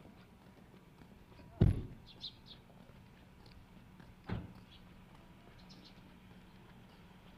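Two dull thumps about three seconds apart, the first the louder, with a few faint light clicks between them over a steady low hum.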